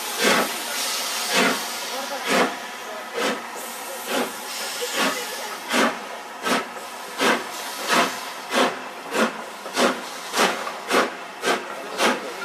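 LMS Stanier Black Five 4-6-0 No. 45407 steam locomotive pulling away with a train. Its exhaust beats quicken from about one a second to about two a second as it gathers speed, over a steady hiss of steam.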